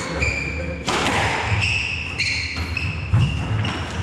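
Squash rally: players' shoes squeaking sharply again and again on the wooden court floor, with a few hard hits of the ball off racket and walls and the thud of footsteps.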